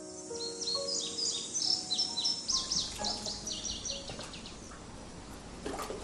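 Small birds chirping, many quick short calls in a busy run, thinning out about four seconds in, over soft sustained background music.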